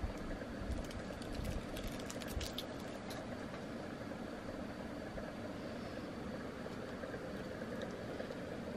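A steady low hum, with a few soft clicks and rustles in the first three seconds.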